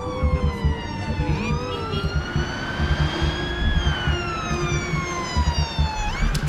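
Emergency vehicle siren wailing in a slow rise and fall, over a low rumble.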